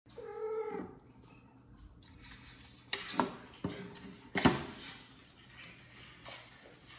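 A brief kitten meow right at the start, then rustling and a few sharp knocks as a phone is set down among plastic plants on a shelf, the loudest knock about four and a half seconds in.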